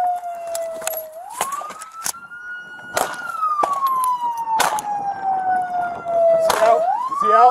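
Police car siren in a slow wail, rising quickly, then falling slowly for about five seconds before rising again near the end. Several sharp cracks cut across it.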